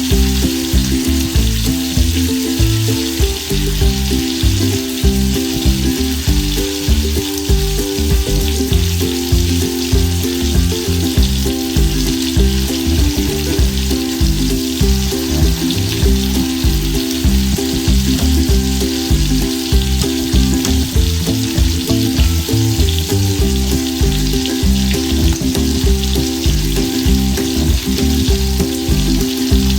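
Ribeye steak sizzling as it fries in a frying pan, with background music playing under it.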